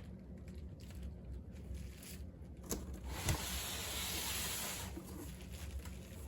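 Packaging being slid and handled on a table: a couple of light knocks, then a steady scraping hiss for about two seconds.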